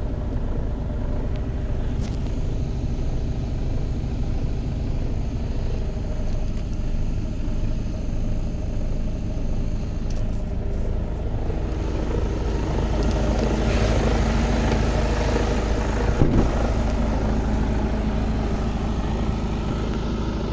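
Mercedes-Benz Actros 2542 truck's diesel engine idling steadily, heard first from inside the cab. About twelve seconds in it grows louder and brighter, and a single sharp knock sounds about sixteen seconds in.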